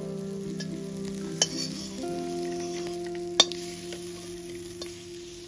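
A spatula scraping fried prawn heads out of a metal kadai onto a plate, knocking against the pan a few times; the sharpest knock comes about three and a half seconds in. Soft background music with held notes plays underneath.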